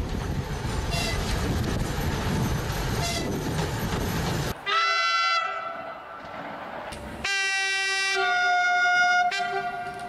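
A 2M62 twin-section diesel locomotive runs past under power, a loud, dense engine and wheel noise. A little over four seconds in it cuts to an electric multiple unit's horn: one blast that slides up slightly into a held note, then after a pause a longer two-tone blast, and a brief blast near the end.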